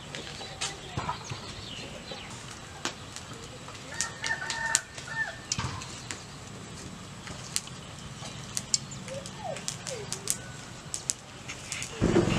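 Chickens clucking and calling on and off, with scattered sharp knocks and taps.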